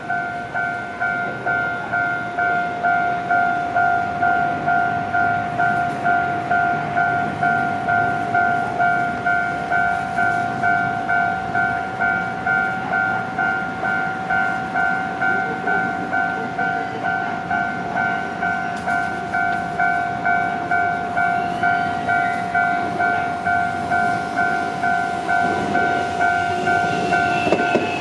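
Japanese level-crossing alarm bell ringing steadily, a two-pitch electronic ding repeating just under twice a second. Near the end, a Shizuoka Railway A3000-series electric train runs in louder, its wheels squealing faintly on the rails.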